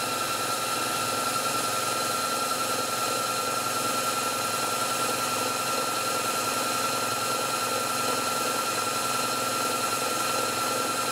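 Myford lathe running steadily at its highest spindle speed, about 2,150 rpm, with a steady high-pitched tone over the even machine noise. At this speed the spindle runs near what its plain bearings will take, as the owner reckons.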